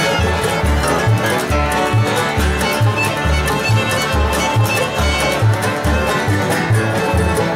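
Acoustic bluegrass band playing a tune together: fiddle, five-string banjo, mandolin, acoustic guitar and upright bass, the bass plucking a steady beat underneath.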